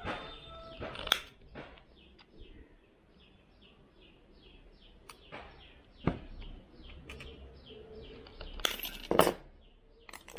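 Sharp metallic clicks and snips as thin steel wire is cut with side cutters and handled, loudest about a second in and again near the end. Between them a bird keeps up short falling chirps, about three a second.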